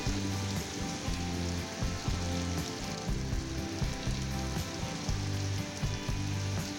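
Heavy tropical rain pouring onto a road and pavement, a dense steady hiss. Underneath it, background music plays a low bass line whose notes step every half second or so.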